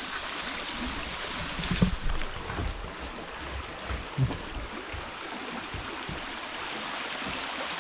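Creek water running steadily over rocks, a flowing stream. A few low thumps come around two and four seconds in.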